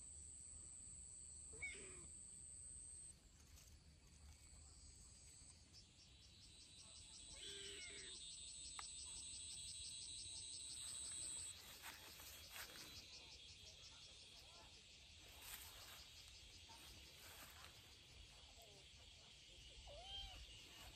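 Faint, steady high-pitched insect trilling, with a fast pulsing trill in the middle stretch, and a few faint kitten mews.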